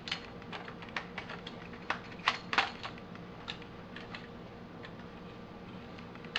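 A run of irregular light clicks and taps, thickest in the first three seconds with two louder ones about two and a half seconds in, over a faint steady hum.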